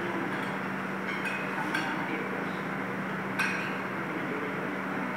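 A few light clinks of cutlery and dishes at a meal table, the loudest about three and a half seconds in, over a steady low hum.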